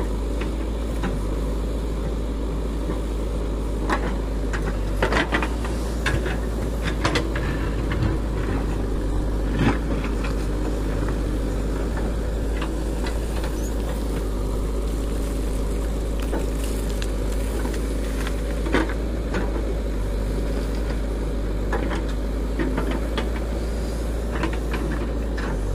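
Diesel engine of a JCB 3DX backhoe loader running steadily under load as its backhoe digs, with scattered sharp knocks and clanks as the bucket works the stony ground.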